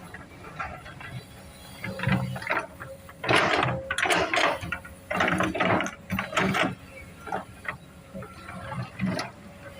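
Komatsu PC200 excavator at work: repeated bursts of scraping and clanking, loudest a few seconds in, over a faint steady tone from the machine.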